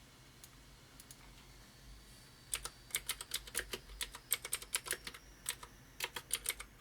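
Typing on a computer keyboard: a quiet start, then a quick run of key clicks from about two and a half seconds in, with a brief pause shortly before the end.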